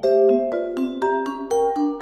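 Marimba played with mallets: a quick, flowing line of struck notes, a new note every quarter to half second, each ringing on over lower notes that move beneath them.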